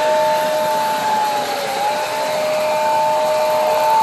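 Toy model steam train's electric whistle blowing one long two-tone note over a rushing hiss, with a slight dip in pitch a little after halfway.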